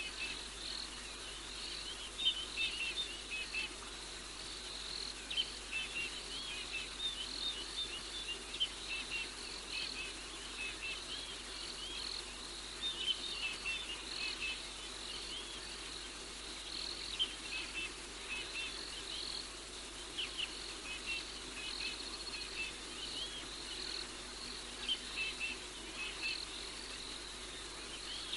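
Night chorus of insects: a steady high trill, with many quick chirps over it coming in clusters every few seconds.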